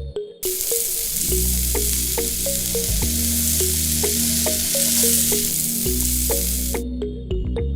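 Background music with short repeated plucked notes over a steady bass, with an even hiss laid over it that stops suddenly near the end.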